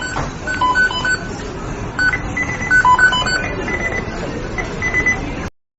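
McDonald's kitchen beeping sound effect: many short electronic beeps at several different pitches, overlapping and repeating over a noisy kitchen background. It cuts off suddenly near the end.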